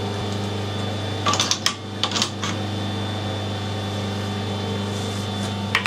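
Metal parts clinking in short bursts, about a second in, again a moment later and once near the end, as steel spacers and a nut are handled onto a lathe mandrel. A steady low machine hum runs underneath.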